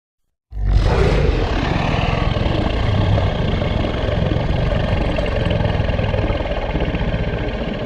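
A loud, steady mechanical-sounding rumble and drone, like a large engine or aircraft, starting abruptly about half a second in and fading out near the end; one effect from a monster sound-effects set.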